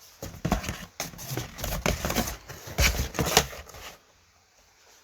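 Plastic DVD cases being handled and shifted in a box: a quick run of clicks and clacks that stops about four seconds in.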